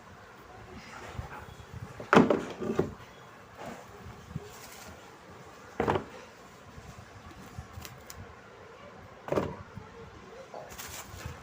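Scattered knocks and clunks of a refrigerator's shelves, trays and containers being handled while it is cleaned out. The loudest comes about two seconds in, with others near six and nine seconds.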